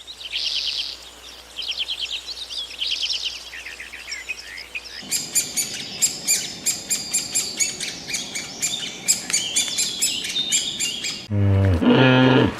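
Songbirds singing: first repeated quick trills of falling notes, then, after a cut about five seconds in, a busier run of sharp, rapid chirps. About a second before the end, a much louder, low-pitched call or voice breaks in.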